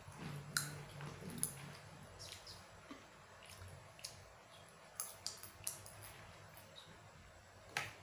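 Faint, sharp clicks at irregular intervals, about eight in all, the loudest near the end, in an otherwise quiet room.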